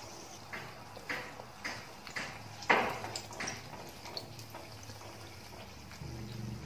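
Batter-coated brinjal slice deep-frying in hot oil: a soft steady sizzle with scattered sharp pops and crackles, the loudest about two and a half seconds in.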